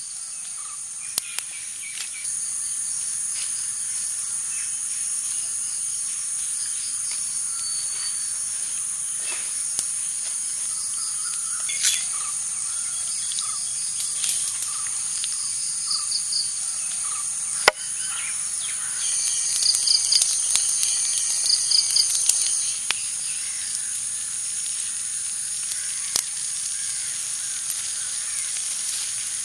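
Forest ambience: insects keep up a steady, high-pitched drone, with scattered bird chirps and a few sharp clicks, the loudest about two-thirds of the way through.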